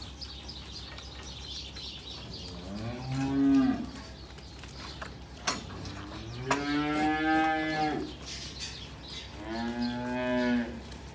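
Heifers mooing: three separate moos, the middle one the longest, at about a second and a half.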